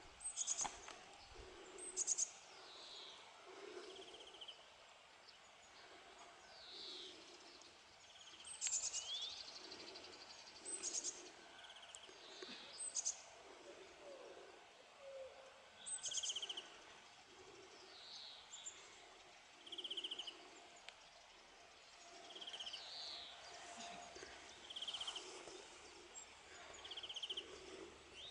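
Several songbirds singing, short high chirps, sweeping notes and buzzy trills. A low note pulses about once a second underneath.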